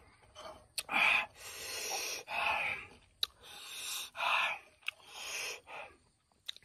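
Loud, noisy breaths and mouth sounds from a man eating a mouthful of rice, about half a dozen short rushes of air between chews. A few sharp clicks are scattered among them.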